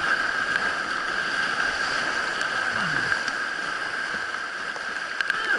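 Whitewater rapids rushing steadily around the kayak: an even, unbroken rush of moving water.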